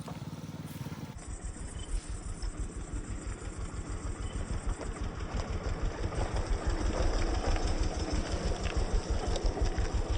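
Small single-cylinder motorcycle engine running with a steady rapid low pulse, starting about a second in and growing gradually louder.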